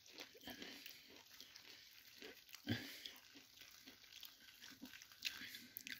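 Faint trickle of water poured from an electric kettle onto a dry brick of instant noodles, with a short low knock or grunt a little before the middle.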